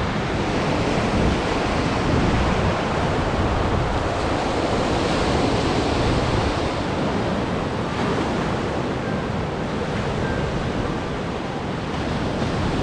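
Lake Michigan surf washing onto the beach: a steady rush of waves, with wind buffeting the microphone.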